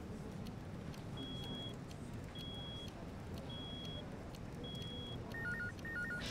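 Electronic beeping: four short high beeps a little over a second apart, then a warbling two-tone trill that repeats near the end, over a steady low room hum.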